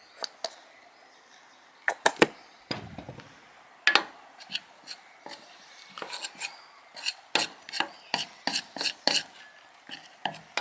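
A spoon stirring a thick corn flour and hair conditioner mix in a bowl, knocking and scraping against the bowl: a few scattered knocks at first, then quick clicks about three a second through the second half.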